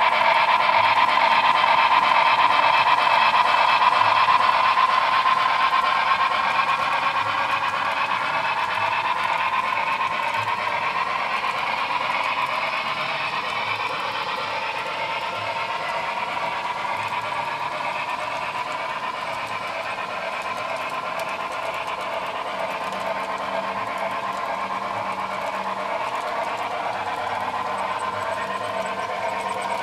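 HO-scale model freight train rolling along the track, a steady whirring rush with a slowly wavering whine. It is loudest as the 4-8-4 locomotive passes, then eases off as the long string of metal and wood kit-built freight cars follows.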